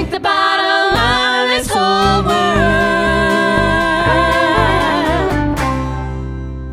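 A country band ends a song live: the singers hold the final note over acoustic instruments. The voices stop about five and a half seconds in, and the last chord rings on and fades.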